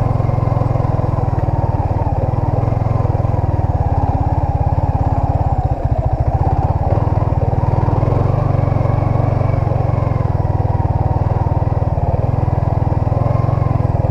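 Yamaha Sniper 155's single-cylinder four-stroke engine running steadily as the motorcycle rides along, a continuous low pulsing rumble with a brief dip about six seconds in.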